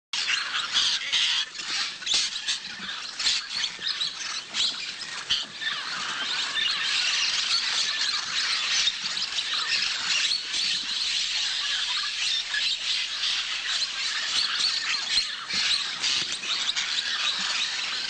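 A flock of blue-headed parrots squawking and chattering while feeding on clay, with many short calls overlapping without a break.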